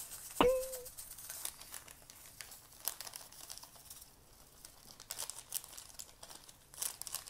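Plastic seasoning sachet crinkling and rustling as red chili powder is shaken and squeezed out of it into a pan, with a denser flurry of crinkles near the end. About half a second in, a sharp knock with a short ringing tone is the loudest sound.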